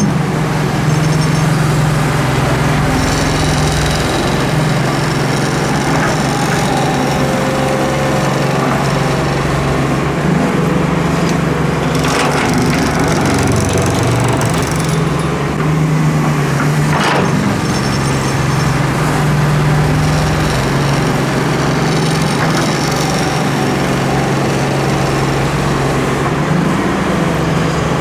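Doosan Solar 130W-V wheeled excavator's diesel engine running steadily under working load while its bucket digs and dumps sand, with gritty scraping and pouring of sand and a couple of sharp knocks, one about twelve seconds in and one about seventeen.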